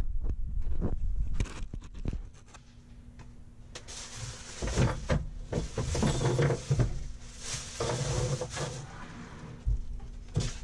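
Clunks, knocks and scraping as equipment is handled and set into place, with a stretch of irregular scraping and rustling through the middle and a faint steady hum underneath.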